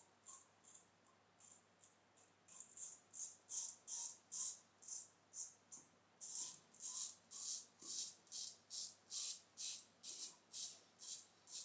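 Short, rhythmic scraping strokes, about two a second, of a Parker Variant adjustable safety razor with a Gillette Wilkinson Sword blade cutting stubble through lather, with a brief pause a little past halfway.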